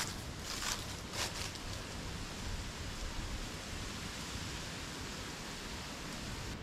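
A few footsteps on a hiking trail in the first second and a half, then they stop, leaving a steady, even hiss of outdoor background noise.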